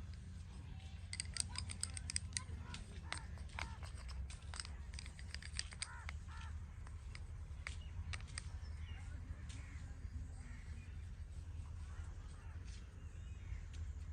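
A quick run of sharp taps and clicks from hands working during a head and back massage, densest in the first half, then thinning out. Birds call faintly over a steady low rumble.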